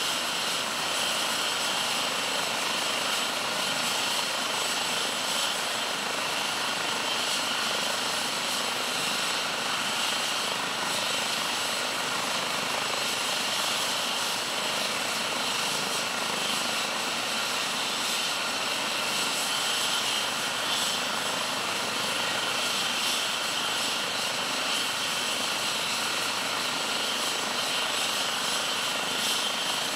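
Eurocopter H135 helicopter's twin turbine engines running on the ground during start-up: a steady, continuous whine with a high tone over it.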